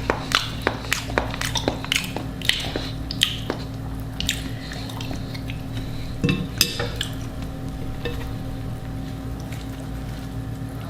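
Close-miked eating noises: a quick run of sharp, crisp clicks and crunches for about four seconds, a short louder cluster a little past the middle, then a quieter stretch over a steady low hum.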